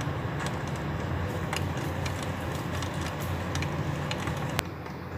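Heavy rain falling, with scattered drops ticking sharply over a steady low rumble, and one sharper click near the end.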